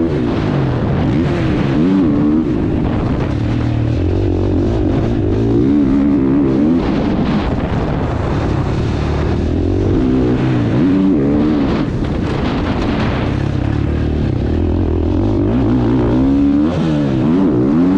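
Husqvarna motocross bike's engine heard from on board, revving up and down over and over as the throttle is opened and closed around the track.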